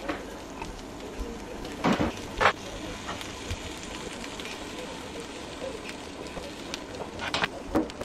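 Thin slices of cured ham frying in hot oil in a nonstick pan: a steady sizzle with sharp pops and crackles, the loudest about two seconds in and again near the end.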